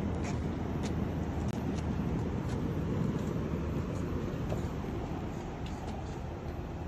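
Bryant heat pump outdoor condenser unit running: a steady low hum from the compressor and fan, with a few faint ticks.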